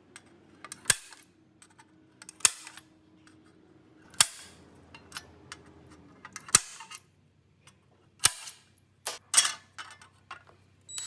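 Sharp knocks and clicks of work on sheet metal, about a dozen at irregular intervals with a quick cluster near the end, over a faint low hum.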